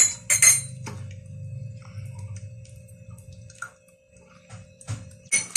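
A metal spoon clinks sharply against a small ceramic bowl and the pan, twice near the start and then lightly a few more times, as salt is spooned into a creamy sauce and stirred in. Under it runs a steady low hum with faint held tones.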